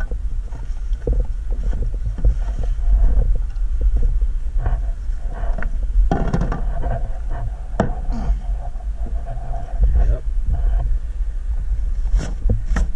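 Scattered knocks, clicks and rustles of hands fitting a plastic deck hatch with a fabric storage bag into a hole cut in a plastic kayak deck, over a steady low rumble.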